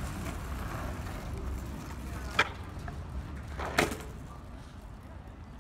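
Longboard wheels rolling on rough asphalt with a steady low rumble, which fades near the end. Two sharp clacks of the board hitting the pavement come about two and a half seconds in and again just before four seconds.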